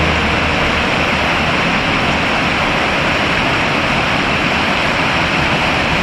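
Steady rushing of flowing water, an even noise with no rhythm or change, cut off sharply at the end.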